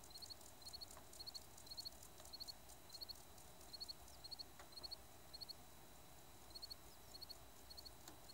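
A faint cricket chirps over near-silent open country. It gives short chirps of three quick pulses, about two a second, with a brief pause a little past the middle.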